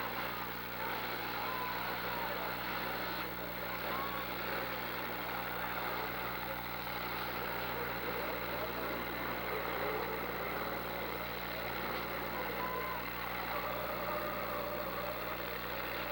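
Demolition derby cars' engines running as the last two cars push at each other, heard as a steady din without clear impacts.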